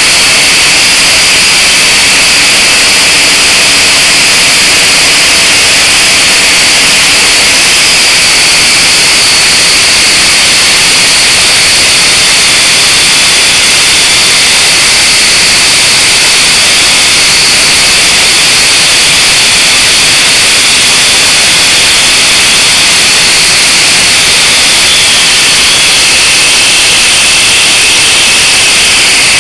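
Blade 180 QX micro quadcopter's small electric motors and propellers whining steadily in flight, loud and close through its onboard camera's microphone. The high whine wavers a little in pitch as the motors change speed.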